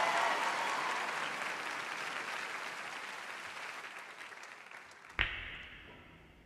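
Studio audience applauding, the clapping dying away over about five seconds. Then a sudden deep hit from a rap backing beat rings out, and a second hit follows right at the end.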